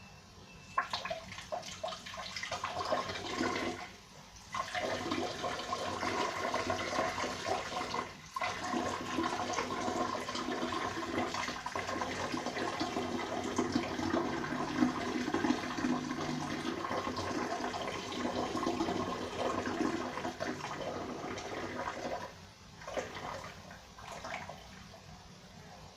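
A person urinating into a toilet bowl. A splashing stream starts about a second in, stops briefly around four seconds and dips again around eight, then runs steadily before ending in a few short last spurts near the end.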